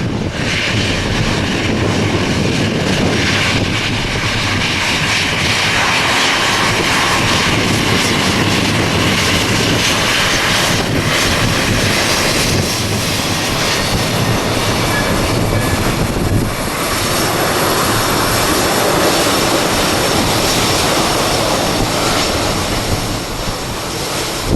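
Jet airliner engines running at high takeoff power, a loud steady noise with a thin high whine over it in the second half.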